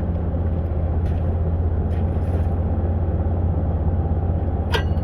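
An engine idling steadily with a low, even hum. A short click sounds near the end.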